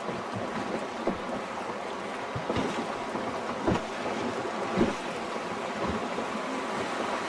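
Fast mountain river water rushing steadily around a wooden raft, with a few short, sharp sounds about a second apart standing out above it.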